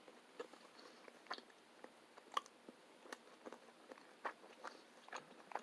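Faint chewing of steak close to the microphone: soft, irregular wet mouth clicks, the loudest about two and a half seconds in.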